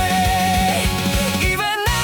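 Rock band music in an instrumental passage: a melodic lead line with pitch bends over bass and drums. The low end cuts out for a moment near the end.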